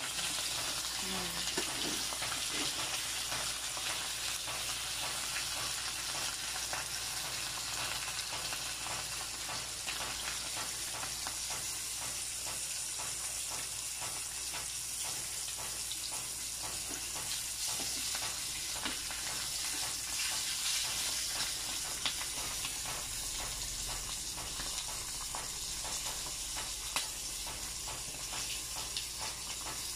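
Dried fish frying in hot oil in a pan: a steady sizzle dense with fine crackling.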